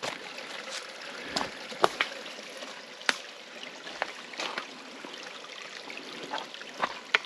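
Footsteps crunching through dry leaves and snapping twigs in a creek bed, with several sharp cracks, over a steady trickle of running creek water.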